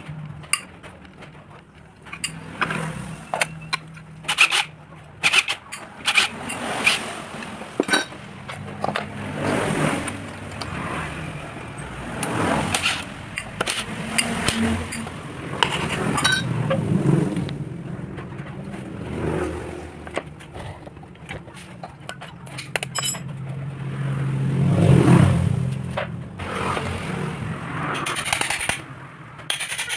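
Scattered metal clicks, knocks and scrapes from hand work on a 750 W 'pig-head' electric water pump. Under them a low rumble swells and fades several times and is loudest a little before the end.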